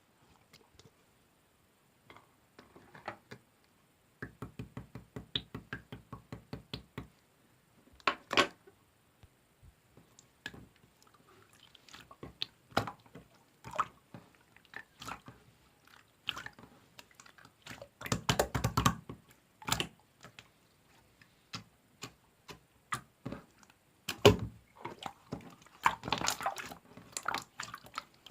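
Clear slime being squeezed, poked and stretched by hand, giving off sticky clicks, pops and wet squelches. A quick run of small clicks comes a few seconds in, and denser crackling squelches come in bursts later on.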